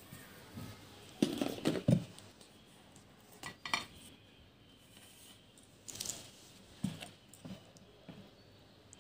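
Dishes and a metal spoon being handled on a kitchen tray: scattered clinks and knocks, the loudest cluster about a second in, with a few lighter ones later.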